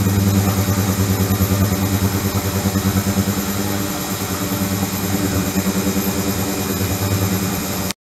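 Flow-through ultrasonic cleaning tank running with its circulation pump pushing water through the bath: a steady low electrical hum that pulses unevenly, with a thin high whine above it.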